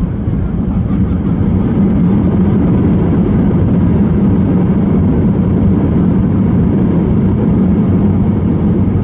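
Loud, steady low rumble inside the cabin of an Airbus A320 as it rolls along the runway after touchdown: engine noise and the wheels on the runway.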